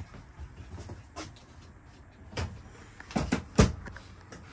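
Motorhome overhead wooden cabinet doors being handled and shut: several short knocks and latch clicks, the loudest thud about three and a half seconds in.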